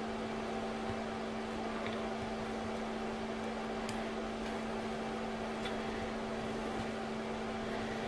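Steady machine hum with a few fixed tones, from a fan or appliance running in the room, and a few faint light clicks of small metal pins being handled.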